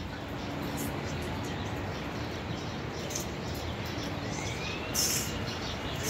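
Steady outdoor background noise with birds chirping; a faint rising whistle a little past four seconds in and a short, sharp high chirp about five seconds in.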